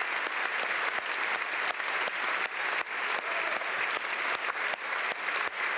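Sustained applause from a large crowd of people clapping, dense and steady throughout.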